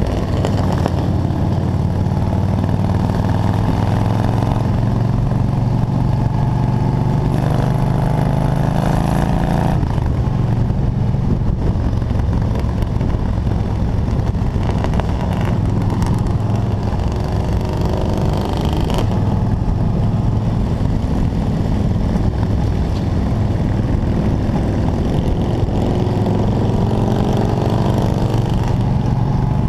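Motorcycle engine running steadily at highway cruising speed, heard from the rider's seat with wind rush. The engine note shifts abruptly about ten seconds in and again near twenty seconds.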